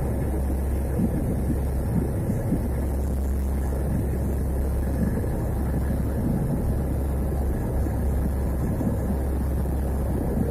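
Steady low drone of a Lockheed C-130 Hercules's four turboprop engines heard from inside the plane's cabin.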